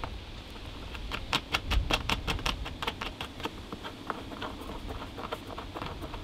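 Small plastic nut being turned by hand onto a plastic bolt through a compost tumbler panel: a quick run of small clicks, about eight a second, for a couple of seconds, then sparser clicks as the fingers keep working it.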